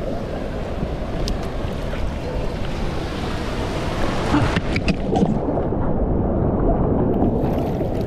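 Ocean water sloshing and rushing around a GoPro held at the surface among small breaking waves, with a few sharp splashes about halfway through. The sound turns muffled and dull for about two seconds after that.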